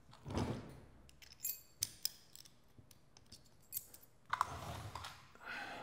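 Light, scattered metallic clicks and clinks from a four-speed Sportster transmission's steel gear cluster and shafts as it is turned and handled on its plate.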